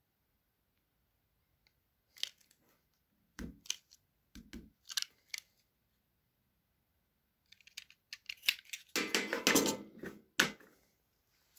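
Utility-knife blade and plastic bottle caps being handled and scraped: a scattering of short clicks and scrapes, then a denser, louder run of scraping and clicks over about two seconds near the end.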